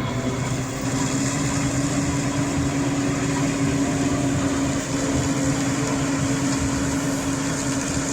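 CLAAS Lexion 420 combine harvester running steadily while harvesting corn: a constant engine and machinery hum with a hiss over it.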